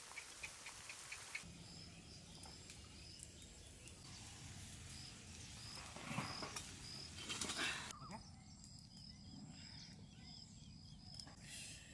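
Faint outdoor ambience: a short high chirp repeats about twice a second over a low steady background, with a louder rushing hiss from about six to eight seconds in.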